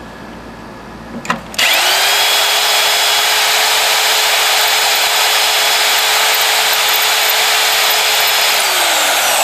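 Corded electric drill boring into the steel frame of a walk-behind mower. After a couple of clicks it starts about a second and a half in, its motor whine rising quickly to a steady full speed as the bit grinds into the metal, then slowing near the end.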